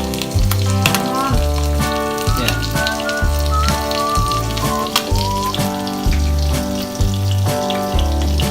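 Background music with a wandering melody over a rhythmic bass line, with the crackle of crumb-coated young swimming crabs frying in oil underneath.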